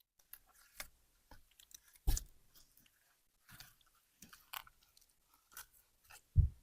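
Slime being mixed: irregular sticky clicks, pops and squelches, with a louder wet thump about two seconds in and another near the end.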